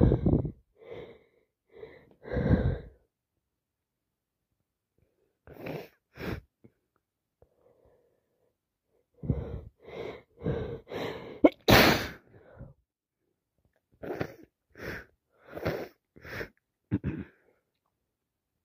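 A person with a summer head cold sneezing over and over in three or four bouts of short, separate sneezes, the sharpest one about twelve seconds in.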